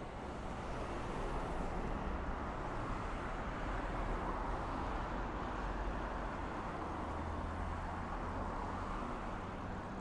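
City road traffic: a steady wash of passing cars and tyre noise, a little louder after the first second.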